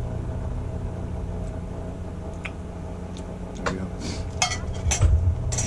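A utensil clinking and scraping against a stainless steel bowl, four or five sharp clinks in the second half, over a steady low hum.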